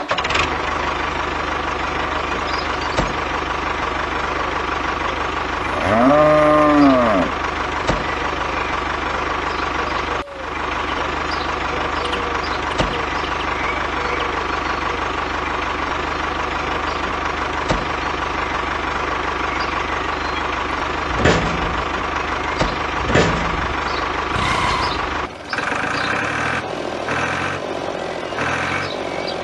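Tractor engine sound effect running steadily, a diesel-like hum, under the toy tractor. About six seconds in a cow moos once, rising and then falling in pitch. Near the end the engine sound turns choppier and pulsing.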